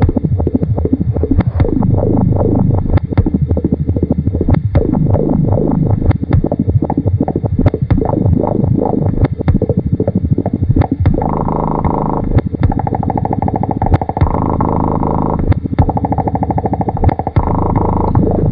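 Experimental electronic tape-music collage: irregular clicks and knocks throughout over a low drone, with repeated falling pitch glides in the first half, then from about the middle on, sustained pitched chords that switch on and off in blocks.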